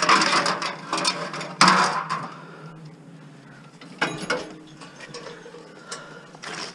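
Scrap metal being handled: lengths of metal garage-door rail and a rusty metal rack clattering, knocking and scraping against each other as they are shifted about. The busiest, loudest clatter comes at the start and again about a second and a half in, then single clanks about four seconds in and near the end.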